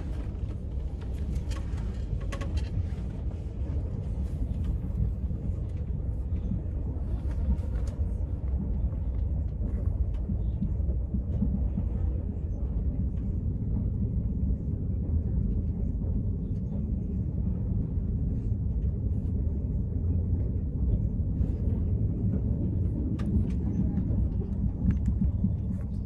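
Steady low rumble of a moving passenger train heard from inside the carriage. Over it come light scratches and rustles of a pen on the paper of a puzzle book, a few at the start, around eight seconds in and again near the end.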